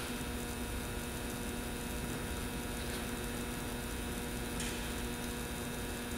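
Steady electrical hum made of several fixed tones over a background hiss, with a faint brief rustle about four and a half seconds in.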